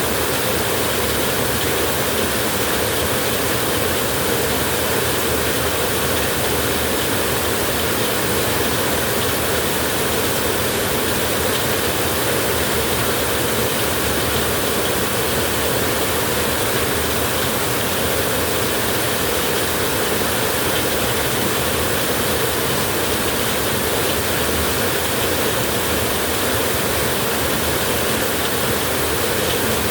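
Light drizzle falling as a steady, even hiss of rain, with no break or change.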